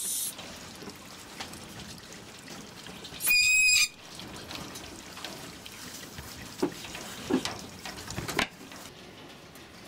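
A caged mink gives one loud, high-pitched squeal about three seconds in, lasting under a second. A few quick scrapes and knocks on the wire mesh come near the end.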